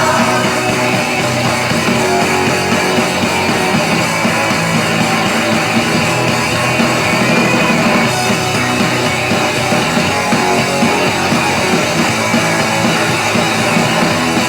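Upbeat rock music, an instrumental stretch of electric guitars and drum kit with no singing, playing steadily and loud.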